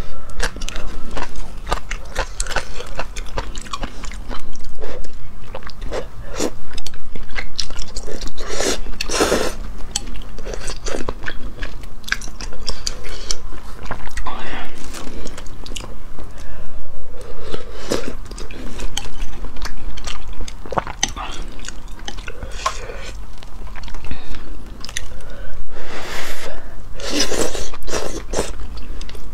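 Close-miked eating of luosifen rice-noodle soup: wet chewing, crunchy bites and mouth smacks throughout, with long slurps of noodles and broth about nine seconds in and again near the end.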